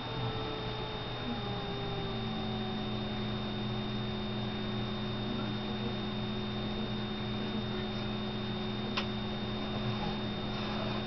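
Steady electrical hum with a thin high whine; one of its tones slides slightly lower over the first two seconds, then holds steady. A single faint click about nine seconds in.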